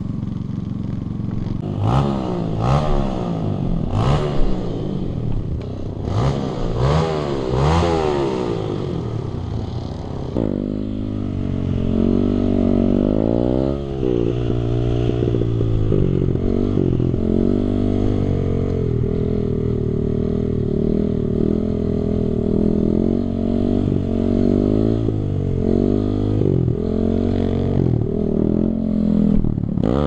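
Kawasaki KLX D-Tracker supermoto's single-cylinder four-stroke engine: a handful of sharp throttle blips, each rising and falling, over the first ten seconds, then held at fairly steady revs with small rises and dips while the bike is ridden in a wheelie.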